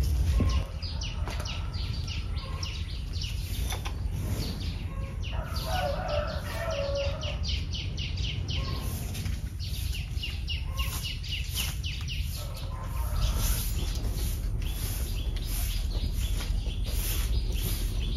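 Birds chirping in short, quickly repeated peeps, with a steady low rumble underneath.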